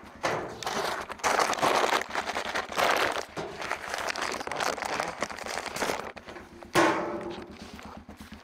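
A machine's engine idling with a fast even pulse, under loud rustling noise that comes and goes. About seven seconds in, the metal mailbox door shuts with a sharp clank that rings briefly.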